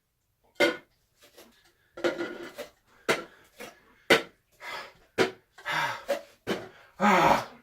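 A string of short knocks and clatters of light cups being handled, with a pet dog making short whining, growling noises toward the end.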